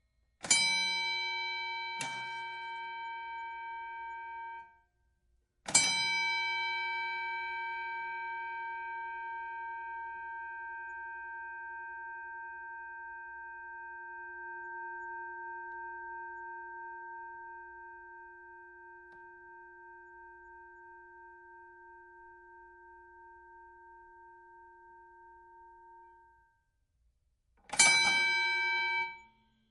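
Boxing ring bell struck with a hammer. Two dings about a second and a half apart are cut off after a few seconds. Then a single strike rings out, fading slowly with a wavering for about twenty seconds, and near the end one more strike is cut off short.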